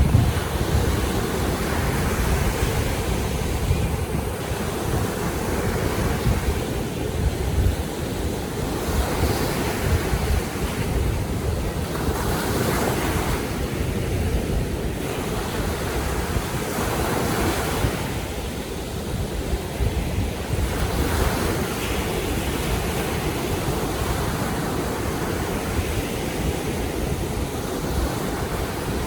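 Baltic Sea waves washing in and falling back, swelling every few seconds, with wind rumbling on the microphone.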